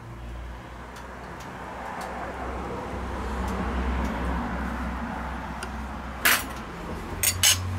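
A low rumbling hiss swells and eases, then near the end three sharp clinks of tableware: dishes, cutlery or glass knocking together.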